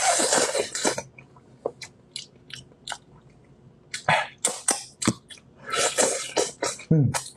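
Close-miked wet slurping, sucking and chewing on braised monkfish head bones. It opens with a long loud slurp, then scattered lip smacks and clicks, with more bursts of slurping about four and six seconds in.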